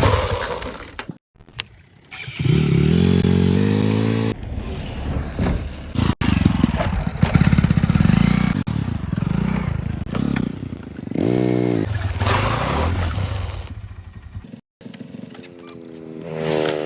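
A vehicle engine running and revving, its pitch rising and falling repeatedly, in short segments broken by abrupt cuts.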